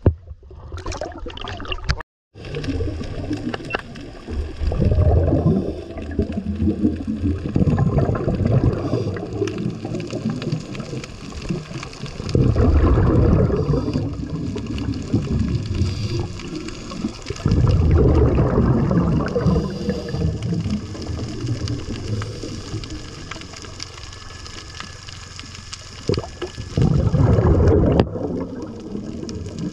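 Scuba divers' exhaled regulator bubbles heard underwater, coming in bubbling bursts of one to two seconds every few seconds. Near the start, a short break in the sound.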